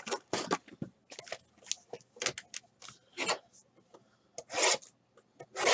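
Hands handling and opening a cardboard trading-card box: a string of short cardboard rubs and scrapes, with a few longer, louder swishes in the second half as the box is worked open.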